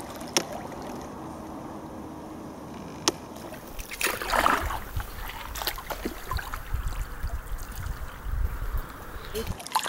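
Water splashing and trickling around a canoe on a river, with a couple of sharp knocks and a louder splash about four seconds in. A low rumble comes in during the second half.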